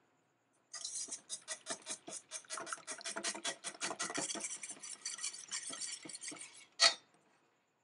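Wire balloon whisk beating a thin egg-and-milk custard mixture in a stainless steel bowl, its wires clinking rapidly against the metal several times a second. The whisking stops with one louder, sharp clink near the end.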